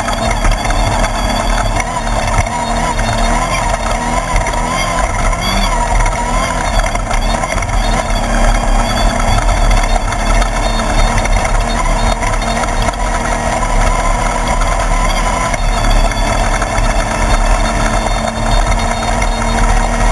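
Class 1/2-1600 desert race buggy's air-cooled 1600 cc VW engine running steadily and loud, mixed with a dense, even noise.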